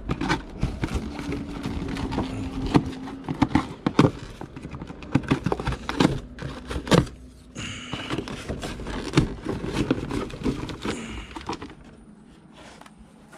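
Packaging and box contents being handled during an unboxing: rustling and clattering with a dense, irregular run of quick clicks and knocks that dies down near the end.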